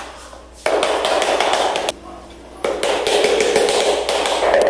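A large-format 60x120 cm floor tile being tapped rapidly as it is bedded into the notched adhesive, in two bursts: one from just under a second in, and a second starting about two and a half seconds in and running on.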